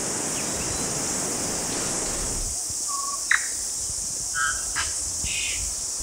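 Tui singing: a few separate notes, a short whistle and then a sharp rising note about three seconds in, followed by a click and short warbled phrases, over a steady high insect chorus. A soft rushing noise fills the first two seconds or so.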